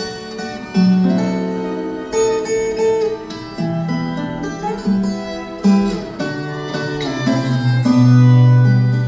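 Cello ensemble playing long bowed notes that change about every second, over plucked and strummed viola caipira. Near the end a deep held cello note swells to be the loudest part.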